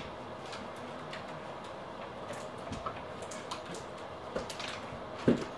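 Quiet room tone with faint, irregular ticks and clicks, and one dull thump near the end.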